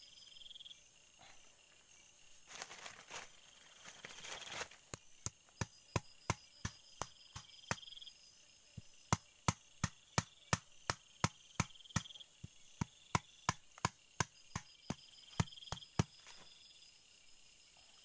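A long, even series of sharp machete blows on bamboo, about three a second, starting a few seconds in after some rustling in dry leaves. Insects trill steadily behind.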